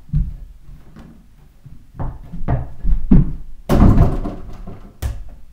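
A run of thumps and bangs from dunking on a door-mounted mini basketball hoop: feet landing on the floor and the ball and hoop banging against the door. The loudest is a rattling crash a little under four seconds in.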